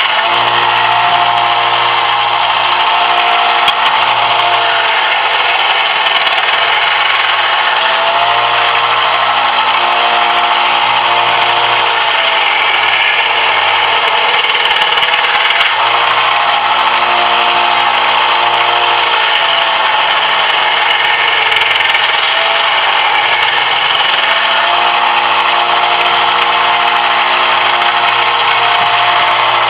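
Electric power tool running continuously while working a brass piece, its motor pitch dipping now and then as it is loaded and recovering.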